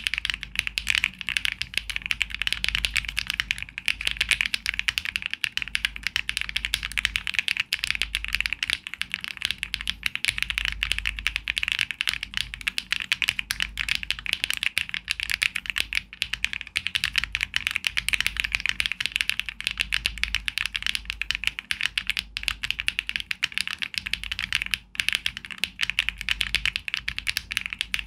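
Fast, continuous typing on a Luminkey65 mechanical keyboard built with a polycarbonate plate and full foam, HMX Sillyworks Hyacinth V2U switches and OTC Modo Light keycaps: a dense, even run of keystroke clicks.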